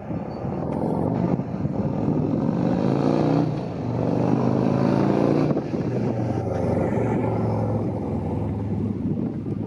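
Motor vehicle engine running close by, its pitch climbing and falling a couple of times midway, then settling to a steady low drone.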